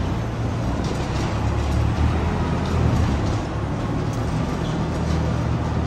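Steady low drone of a feed mixer wagon and its tractor running while the wagon spreads feed along a barn feed alley.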